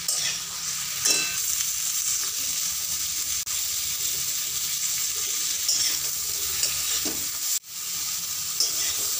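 Sliced star fruit sizzling in hot oil in a metal kadai while being lightly sautéed, with a spatula scraping and stirring now and then.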